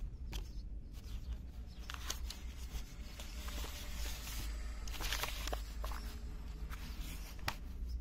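Paper exam booklets and study things being handled and gathered up on a table: paper rustling in short patches with scattered light knocks and clicks, over a low steady rumble.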